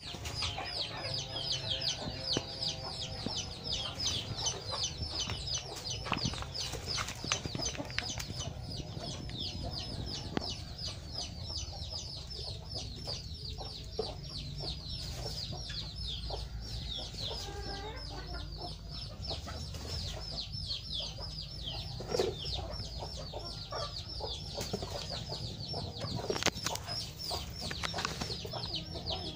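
Chicks peeping: a constant run of high, falling peeps, several a second.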